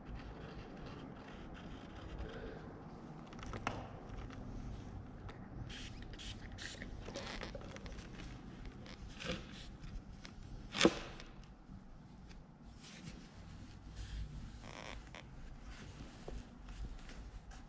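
Wooden casing trim being handled on a concrete floor while a mitred corner is pressed together: faint, scattered scrapes and light clicks, with one sharper click about eleven seconds in.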